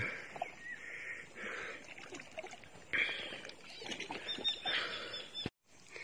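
Shallow sea water sloshing and splashing in irregular surges as a person wades through it.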